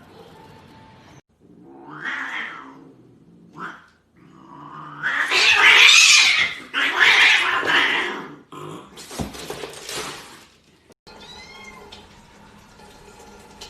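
A cat caterwauling: a short cry, then loud, long, rough yowls in the middle, followed by a few faint short meows near the end.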